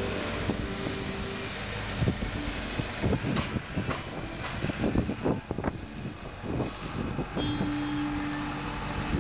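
Diesel recovery truck running as it drives across the yard with the sprayer loaded on its flatbed. A cluster of knocks and clatters comes a couple of seconds in and lasts several seconds.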